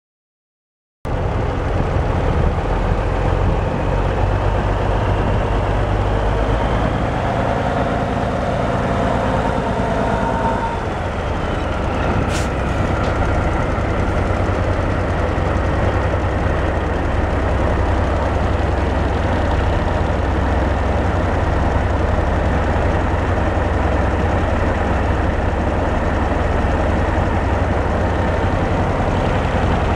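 The Cummins diesel engine of a 1982 Ford LTL9000 dump truck idling steadily, starting about a second in. There is a single sharp click about twelve seconds in.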